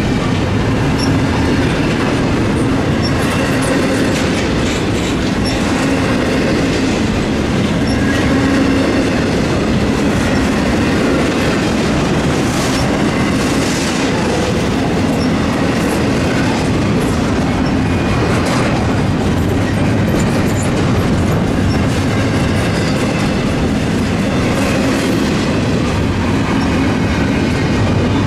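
Freight train cars rolling past on the rails: a steady loud rumble and clatter of wheels over the track, with scattered faint high wheel squeaks.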